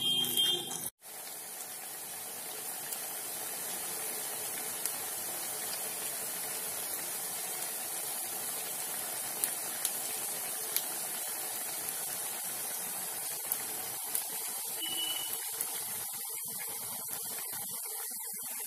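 Sabudana pakoras deep-frying in a kadai of oil: a steady sizzle with a few sharp pops. A brief louder noise in the first second stops abruptly before the sizzle settles in.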